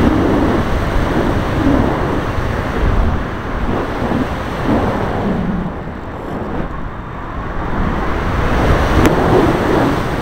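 Rushing airflow buffeting the microphone of a camera mounted on a motor glider in flight. It swells and eases as the aircraft manoeuvres, with a single small click about nine seconds in.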